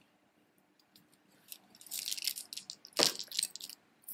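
Beads of a chunky beaded statement necklace clicking and rattling against each other as it is gathered up, with one sharper knock about three seconds in.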